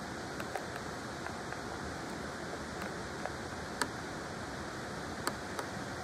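Clear mountain river water flowing with a steady rushing hiss, with a few small sharp ticks, the loudest about four and five seconds in.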